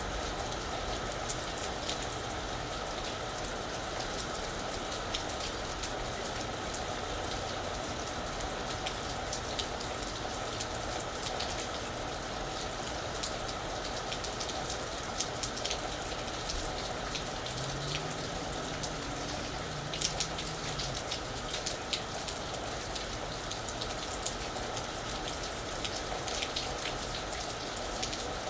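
Steady rain falling on a roof: an even hiss dotted with many sharp individual drop hits. A faint low hum rises and falls briefly about eighteen seconds in.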